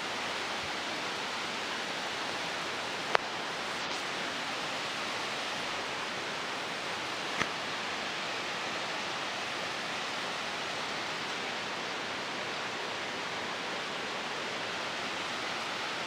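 Steady rush of a mountain stream, an even hiss of water that does not change, with two brief clicks about three and seven seconds in.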